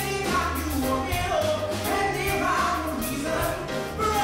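A man singing a musical-theatre song into a handheld microphone, backed by a live band of piano, electric bass and drums, with a steady beat.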